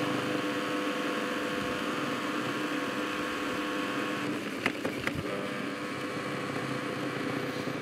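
Small electric chopper running steadily as it grinds almonds, with a steady motor hum and a grainy hiss from the ground nuts. Two short clicks come a little under five seconds in.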